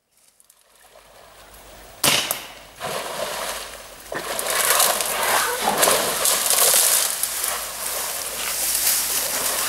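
Wild Asian elephant wading out of muddy shallow water, its legs splashing and sloshing, with leaves and branches rustling as it pushes into the bankside bushes. It starts sharply about two seconds in and grows louder and busier from about four seconds on.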